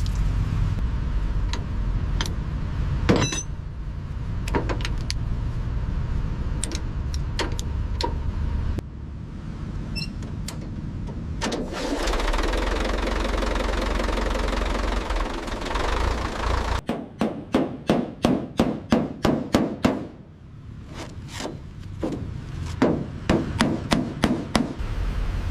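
Workshop noise: a steady low rumble with scattered sharp clicks. Past the middle come two runs of rapid, evenly spaced hammer strikes, about four a second.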